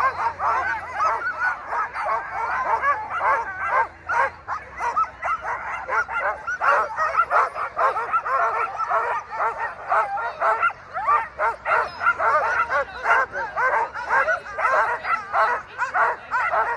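A team of sled dogs on the gangline yelping and barking all at once in a dense, continuous chorus. The dogs are excited and eager to run before the start.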